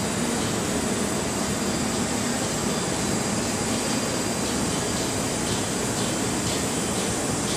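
Wind tunnel fan running steadily: a continuous rushing-air noise with a low hum underneath.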